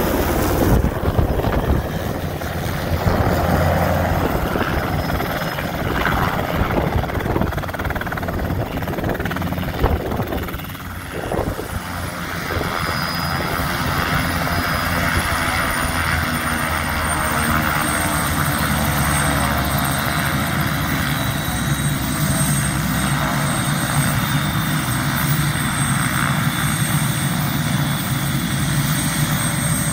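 Enstrom 480B turbine helicopter descending and settling onto the ground about a third of the way in, then running steadily on the ground. Its main rotor beats evenly over a high, steady turbine whine.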